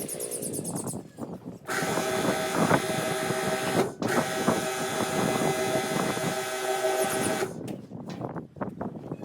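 A small motorised tool running steadily with a whine and a hiss, stopping briefly about four seconds in and then running on for a few more seconds, with scattered knocks of handwork around it.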